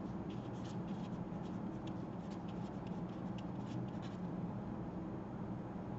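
Felt-tip marker writing on paper: a run of short, quick strokes that stops about four seconds in.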